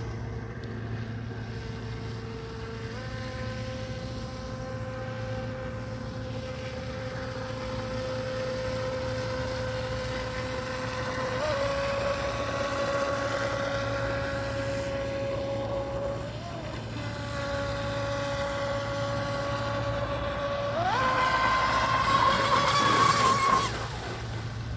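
Radio-controlled speedboat's motor whining at a steady throttle. Its pitch steps up about three seconds in and again about halfway, dips briefly, then climbs sharply to its highest and loudest near the end before cutting off suddenly.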